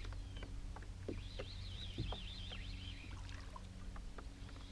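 Faint water splashing and scattered small clicks as a hooked bass is reeled in to the bank, with a bird singing a wavering, warbling phrase about a second in.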